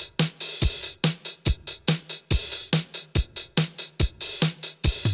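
Electronic outro music: a drum-machine beat with a heavy kick drum a little under once a second and choppy, stuttering hits in between.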